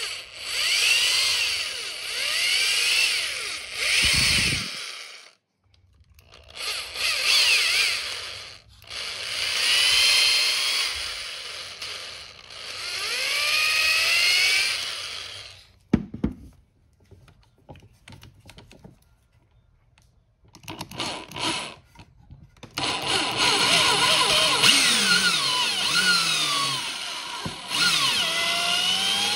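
Electric drill spinning a reamer through a carburetor's throttle-shaft bore to enlarge it for bushings, run in short bursts of a second or two with whining, squealing tones that rise and fall as it cuts. It stops for a few seconds about halfway, with one sharp click, then runs steadily through the last third.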